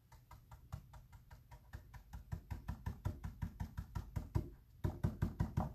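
A stencil brush dabbing paint through a plastic stencil onto a wooden board, struck straight up and down in quick, even taps about four or five a second. The taps grow louder near the end.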